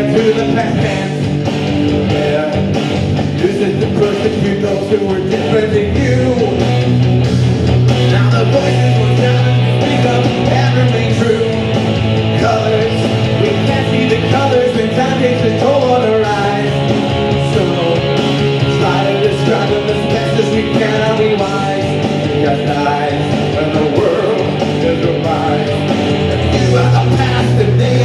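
Live rock song: electric guitar played with a male voice singing into a microphone, over a steady beat.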